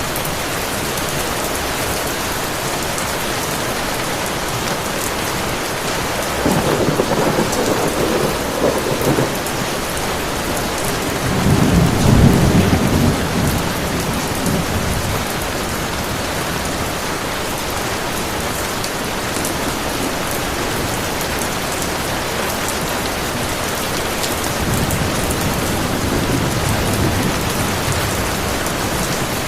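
Heavy rain falling steadily, with three rolls of thunder: one about six seconds in, a louder and deeper one about twelve seconds in, and a fainter one near the end.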